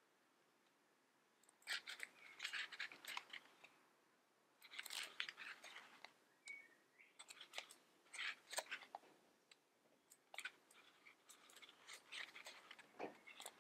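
Pages of a paperback book being flipped through by hand: faint paper rustling and page flaps in several bursts, with short pauses between.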